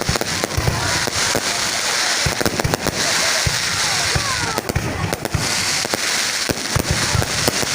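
Fireworks going off in quick succession: many sharp bangs over a dense crackle, with a few short whistles near the middle.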